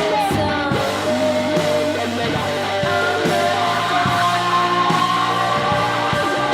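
Rock-style song with a singing voice, guitar and a steady beat.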